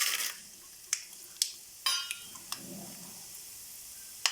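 Mustard seeds and chana dal tipped into hot oil in a kadai: a brief sizzle as they go in, then the mustard seeds popping as scattered sharp crackles, about half a dozen over a few seconds.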